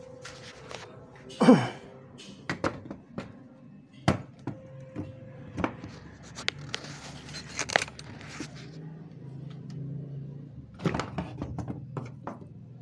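Scattered knocks and clicks of objects being handled on a workbench, with a short falling squeak about a second and a half in that is the loudest sound.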